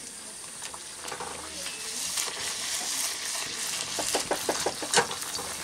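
Fuchka puris deep-frying in hot oil in a steel kadai, the oil sizzling steadily and growing louder about a second and a half in. A handful of sharp clicks comes near the end.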